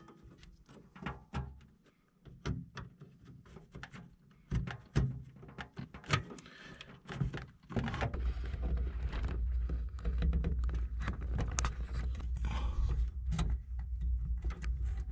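Irregular plastic clicks and knocks of SATA data and power connectors being pushed onto a hard drive and of cables being handled inside a PC case. About halfway through, a steady low rumble comes in underneath.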